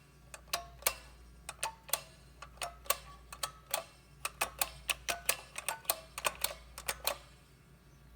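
Push buttons on a prototype Western Electric ten-button phone being pressed: a quick, irregular run of sharp clicks, some with a short ring, stopping about seven seconds in.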